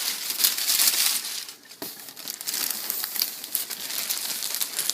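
Packaging crinkling and rustling as a plush toy is pulled out of its shipping box, a dense run of irregular crackles, louder for the first second and a half, then softer.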